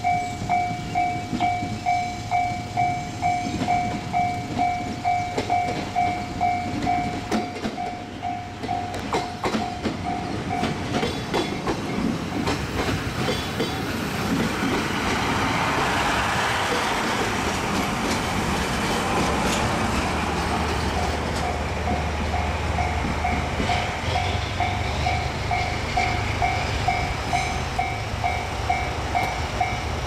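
Level-crossing warning bell ringing about twice a second as a train hauled by a DE15 diesel locomotive passes close by, its wheels clicking over the rail joints. Near the end the crossing bell rings again over the low running of the diesel engine.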